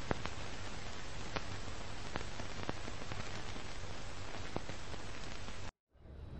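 Steady hiss sprinkled with irregular crackles and pops, an added old-film surface-noise effect. It cuts off suddenly near the end, and a low outdoor ambience begins to fade in.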